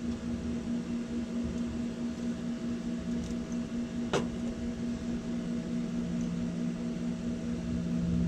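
Steady hum of an air-conditioning condenser unit running, with a single sharp click about four seconds in.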